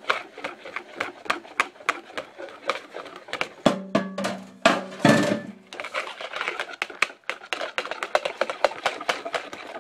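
Spoon or whisk stirring a honey and egg filling in a plastic mixing bowl, tapping and scraping against its sides in quick irregular clicks as hot honey is worked into the eggs. A brief steady low tone sounds around the middle.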